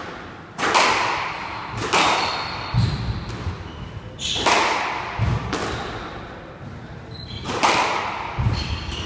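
Squash rally: the ball struck by the rackets and smacking off the court walls, sharp hits about a second apart, each ringing briefly in the enclosed court. Low thuds and short squeaks from the players' shoes on the wooden floor fall between the hits.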